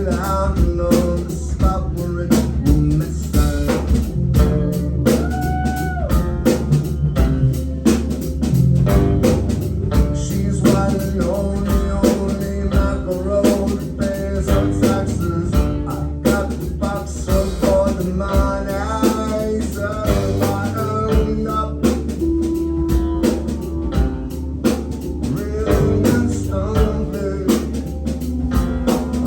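A rock band playing live: a drum kit keeping a steady beat under electric guitar, with sung vocals.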